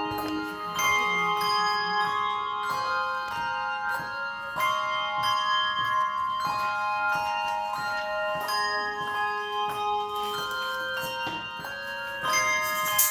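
Handbell choir ringing a hymn tune: chords of clear bell tones struck in a steady rhythm, each note left ringing on.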